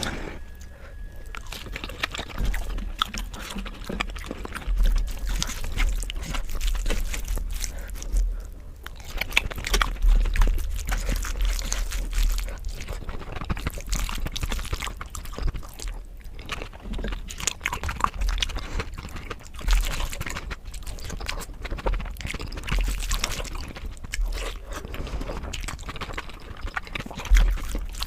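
Close-miked eating: a person chewing and crunching food with wet mouth noises, in a dense irregular stream of clicks and crunches, over a low thumping rumble.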